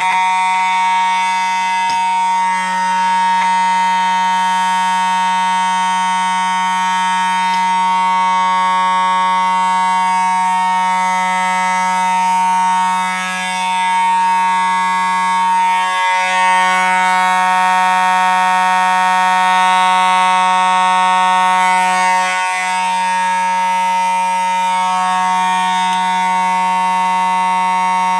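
Simplex 2901-9838 fire alarm horn, set off from a manual pull station, sounding a loud continuous steady tone.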